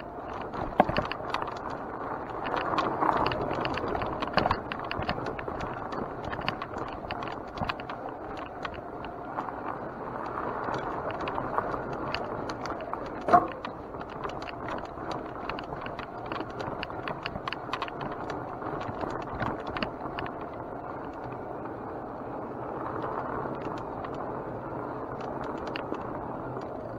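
Mountain bike ridden over a rough dirt trail: tyre noise on dirt and gravel, with constant rattling and clicking from the bike over bumps. There is one louder knock about halfway through.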